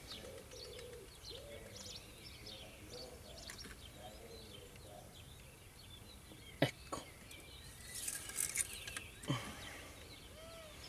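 Birds chirping and twittering, with a single sharp click about two-thirds of the way through and a brief scraping rustle shortly after.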